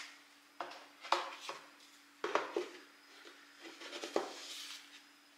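Cedar steamer basket tiers being handled and stacked on a cloth mat: a series of light wooden knocks and clatters, about seven in all, loudest just after a second in and again near four seconds.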